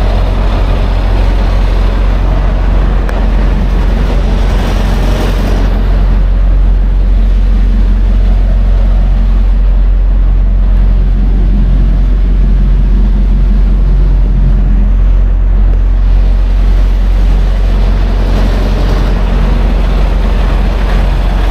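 Semi truck's diesel engine idling steadily, heard close by the tractor-trailer. A brief rush of noise comes about five seconds in.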